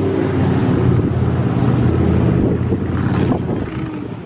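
A vehicle's engine running steadily under a loud rush of wind noise.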